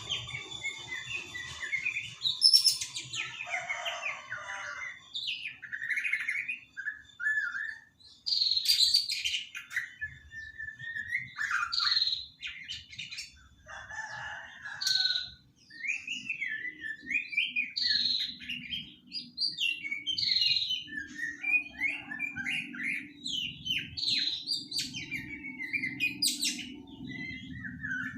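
Young white-rumped shama, about three months old, singing a rapid, varied run of whistles, trills and chattering notes.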